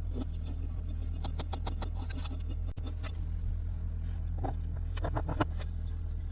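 Small plastic toy pieces being handled: a quick run of sharp clicks and taps about a second in, a brief crinkle, then another cluster of clicks near the end, over a steady low hum.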